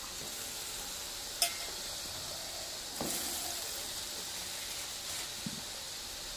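Water heating in a steel karai sizzling steadily as lumps of jaggery go in to melt down into syrup. A sharp clink about a second and a half in, and a knock with the sizzle growing louder about three seconds in.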